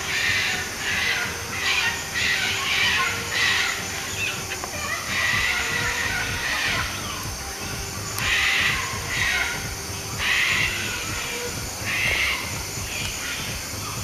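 A flock of sulphur-crested cockatoos screeching: harsh, rasping calls that overlap and come in irregular bursts every second or so.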